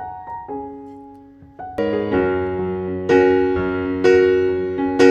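Background piano music: a few soft single notes, then fuller, louder chords struck about once a second from a couple of seconds in.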